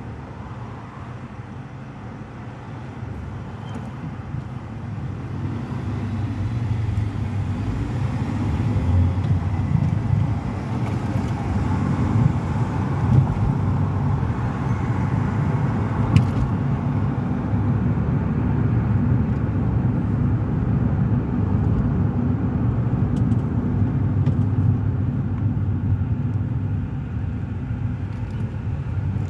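Engine and road noise heard inside a car's cabin as the car pulls away from a stop and drives on: a low rumble that grows over the first several seconds, then holds steady.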